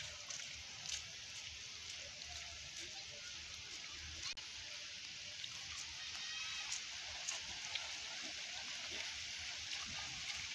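Light rain falling on wet grass and ground: a steady soft hiss with scattered faint drop ticks.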